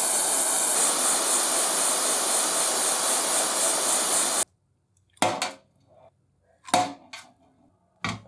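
A loud, steady rushing hiss from a workshop machine that cuts off abruptly about four and a half seconds in. It is followed by four short, sharp knocks with a slight ring, spaced about a second apart.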